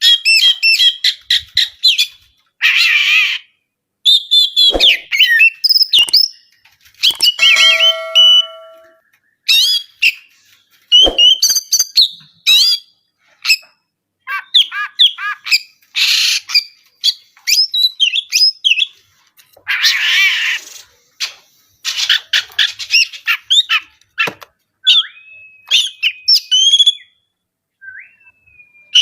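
Oriental magpie-robin (kacer) singing loudly and without a break: fast, varied whistles and chirps broken by a few harsh rasping notes, with long held whistles near the end.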